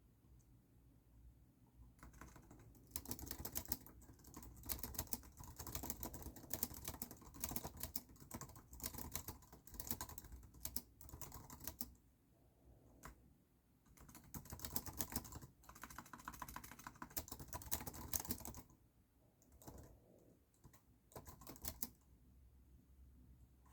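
Typing on a computer keyboard: runs of rapid keystrokes broken by a few pauses of a second or two.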